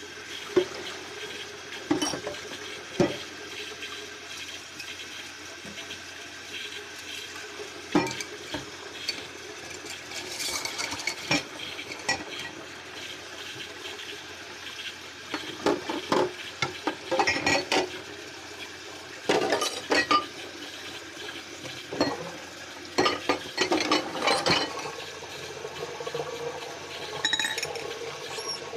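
Dishes and cutlery clinking and knocking against each other while being hand-washed at a sink, in scattered clusters of sharp clinks over a steady hiss of running water.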